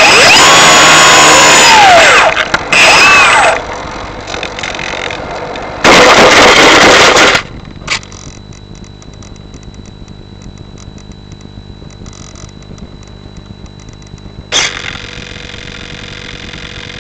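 Loud rushing noise with a whine that rises and falls, picked up on board an electric RC glider on its landing approach, cutting off sharply about seven seconds in as the model comes to rest in the grass. After that only a quieter hiss with faint rapid crackling, broken by a brief loud burst near the end.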